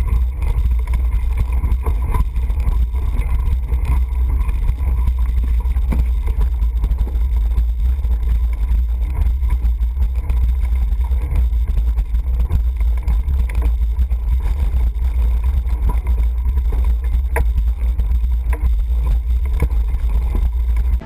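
Steady low rumble of wind buffeting and road vibration on a bicycle-mounted camera's microphone as the bike climbs a gravel road, with scattered small clicks over it.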